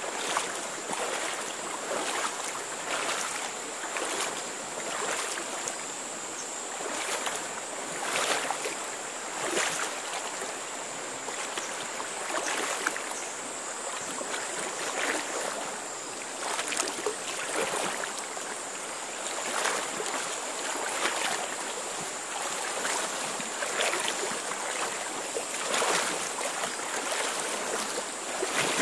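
People wading through a shallow river: a swishing splash of water with each step, about one a second, over a steady wash of water noise and a thin, steady high tone.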